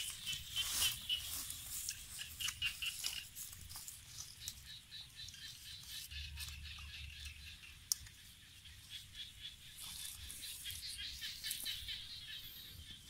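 Leafy weeds and plants rustling and crackling as they are pulled up and handled at a muddy pond edge, with scattered small ticks and one sharp click about eight seconds in.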